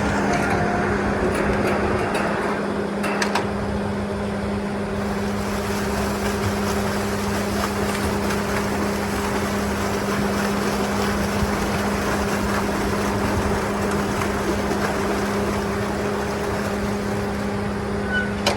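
A motor running steadily: a constant low hum over a wash of noise, with a few sharp clicks about three seconds in.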